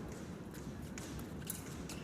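Steady background noise of a large hall, with a few faint light taps.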